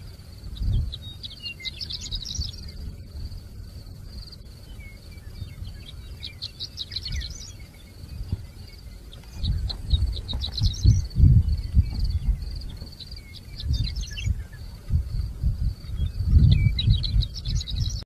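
Horned lark singing from a fence post: five short, high, tinkling song phrases, one every three to four seconds. A low rumble runs underneath, loudest between the phrases in the second half.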